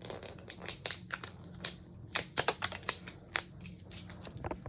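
Handling a plastic Mini Brands capsule and peeling its paper wrapper: a quick, irregular run of small clicks and crackles.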